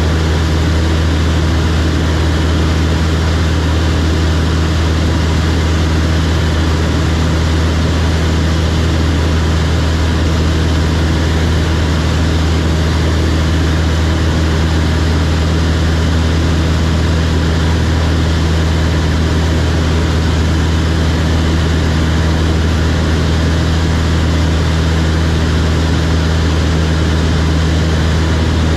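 Light aircraft's piston engine and propeller droning at a steady pitch, heard from inside the cockpit in level flight.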